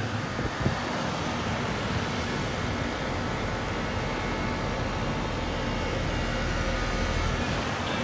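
2002 Trane XR11 3.5-ton heat pump outdoor unit running steadily in cooling mode: a low, even hum from the compressor under the rush of air from the condenser fan.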